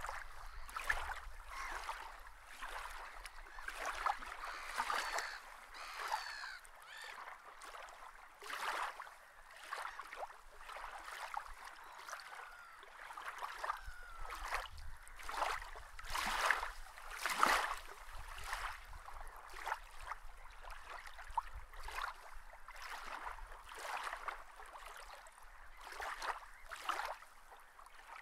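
Irregular water splashing and lapping, with a few short bird calls.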